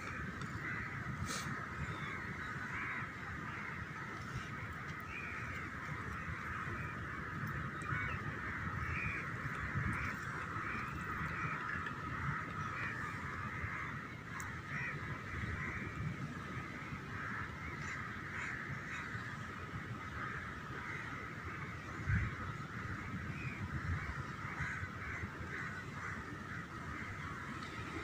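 A dense, unbroken chorus of many birds calling at once, over a low steady rumble.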